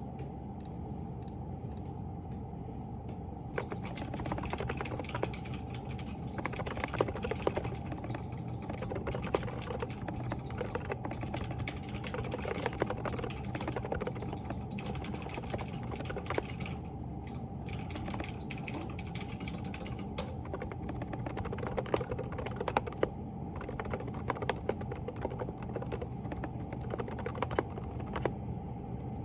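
Fast, steady typing on a Groovestone GV10 mechanical keyboard with hand-lubricated silent Coral switches (38 g), a dense run of soft key clicks that starts a few seconds in, over a steady low room hum.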